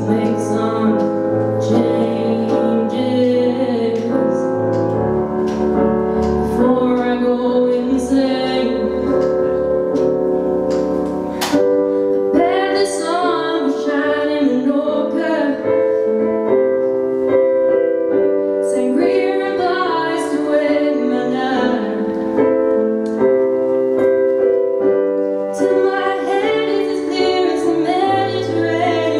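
A woman singing into a microphone while accompanying herself on a Roland RD-700GX digital stage piano, which plays held chords under her sung phrases.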